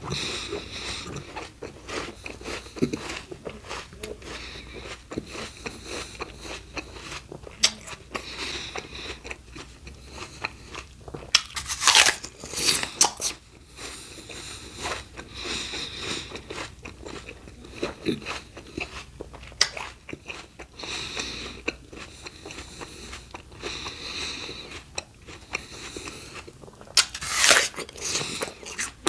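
Close-miked chewing of raw fruit and vegetables: a steady run of crisp, wet crunching, with a few louder crunching bites about twelve seconds in and again near the end.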